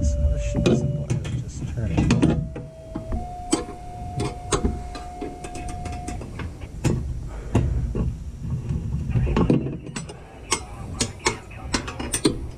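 Socket ratchet clicking in short runs as an exhaust mounting bolt is worked up under a lawn tractor, with the clicks coming fastest near the end.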